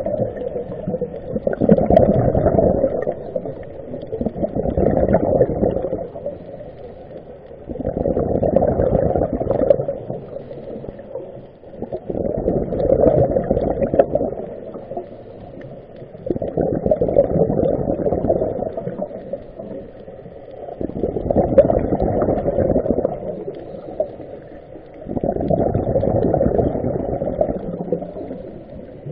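A scuba diver breathing underwater: a muffled rush of exhaled bubbles from the regulator comes about every four seconds, with quieter inhales between.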